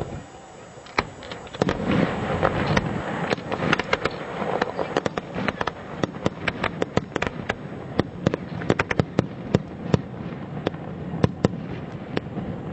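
Fireworks display: a rapid, irregular run of sharp bangs and crackling reports from bursting shells, with a rushing noise under them in the first few seconds.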